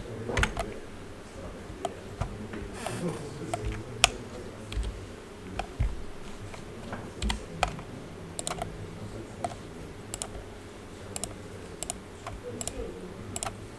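Computer keyboard keys and mouse buttons clicking at irregular intervals, now single, now in quick pairs.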